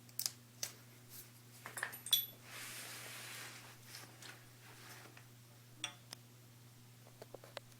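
Faint, scattered clinks and taps of small metal parts and tools being handled, with a brief soft hiss about two and a half seconds in, over a steady low hum.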